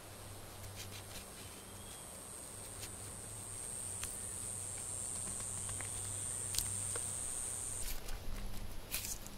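A steady high-pitched insect drone in the grass, slowly growing louder and then stopping abruptly near the end. Over it, light clicks from hands working a bootlace cord into a knot.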